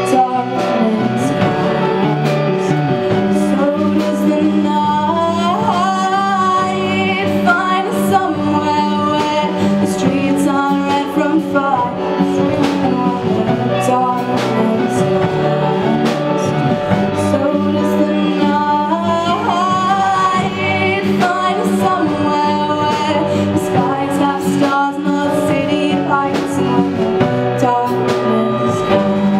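A live band playing a song: a woman sings the lead over electric guitars and drums, with regular drum hits under the melody.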